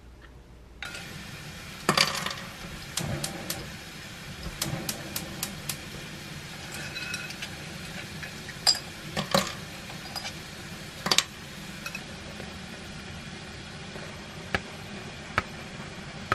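Oil sizzling steadily in a frying pan as food fries in it, starting about a second in, with sharp pops and clicks now and then.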